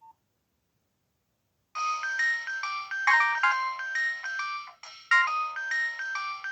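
Nokia 1680 classic playing one of its built-in polyphonic ringtones through its loudspeaker: a melody of quick, bright synthesized notes that starts about two seconds in, with a brief break near five seconds before it carries on.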